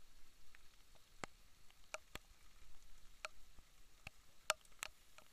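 Raindrops hitting close by: about ten sharp ticks at irregular intervals, the loudest a little after four seconds in, over a faint hiss.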